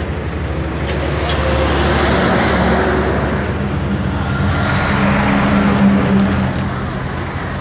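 Highway traffic: a heavy multi-axle truck drives past close by, its engine and tyres growing louder to a peak about six seconds in and then fading, over a steady low engine sound.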